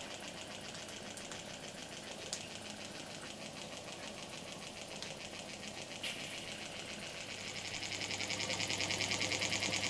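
Peake No. 4 'Powerhouse' toy steam beam engine running fast, its exhaust puffing in a rapid, even beat, with a few light clicks. About three-quarters of the way in it gets louder and a low hum comes in.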